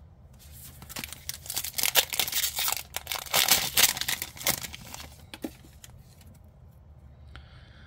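Foil trading-card booster pack being torn open and crinkled, a dense crackling that is loudest midway. It dies down about two-thirds of the way through, with only light handling noise as the cards come out.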